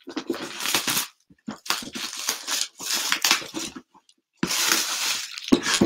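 Seals and wrapping being torn off a sealed cardboard hobby box, in three stretches of tearing and crinkling.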